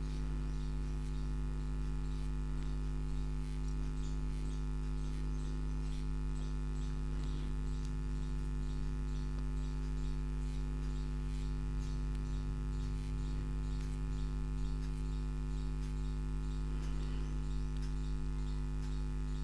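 Steady electrical mains hum with a ladder of evenly spaced overtones, unchanging throughout.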